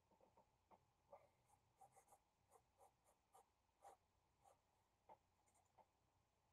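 Marker tip scratching faintly on paper in many short, irregular strokes, stopping near the end.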